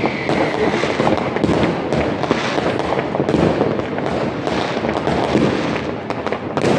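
Dense New Year's fireworks: a continuous crackle of many firecrackers and rocket bangs popping at once, with a faint whistle just after the start.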